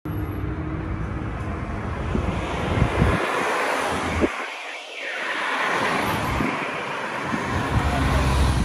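Wind buffeting an outdoor microphone: a steady rushing noise with heavy low rumble that eases briefly about halfway through.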